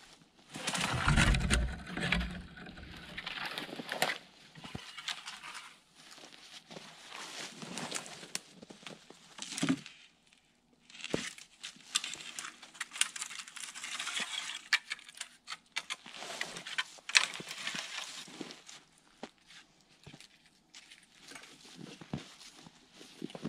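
Irregular crunching, rustling and snapping of dry deadfall branches being gathered for firewood, with footsteps in among it. The heaviest crunching comes about a second in.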